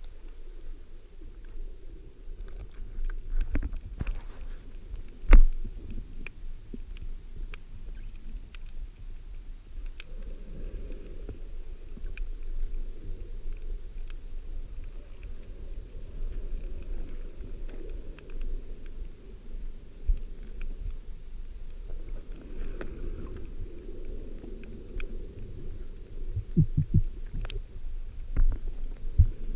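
Underwater sound through a diving camera's housing: a low rumble and rushing of wave surge that swells twice, with scattered small clicks and one sharp knock about five seconds in.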